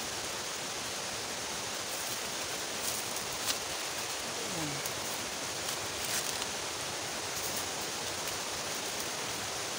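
Steady rushing hiss of a waterfall and stream below, with a few faint clicks.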